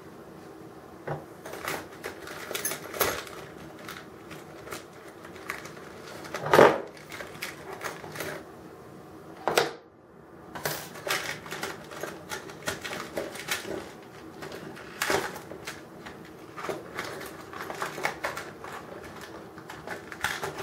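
Small diecast and plastic model-crane parts and tools clicking, tapping and clattering irregularly as the model is taken apart by hand, with two louder knocks, one about six and a half seconds in and one near ten seconds.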